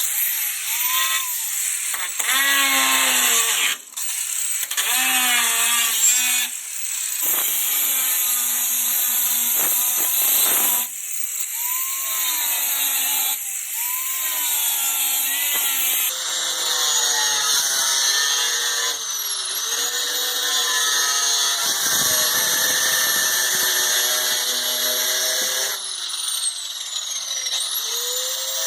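Angle grinder cutting through rusted sheet metal and fasteners. Its motor whine sags and recovers as the wheel bites, with a harsh hiss of cutting, and it stops and restarts several times.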